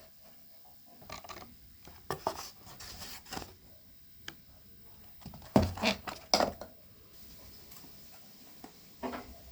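Irregular knocks, taps and rustles of small objects being handled, loudest in a cluster a little past halfway.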